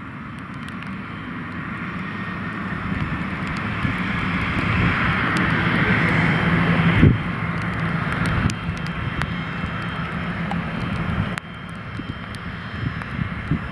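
Pilatus PC-24's twin Williams FJ44 turbofan jet engines running, a steady jet noise that grows louder over the first half. A sharp thump comes about seven seconds in, and the sound drops off abruptly twice.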